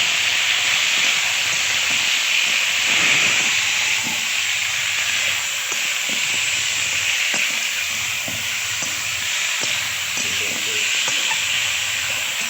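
Mutton frying in hot oil with a steady sizzle while it is stirred, with irregular scrapes and knocks of the spoon against the pan.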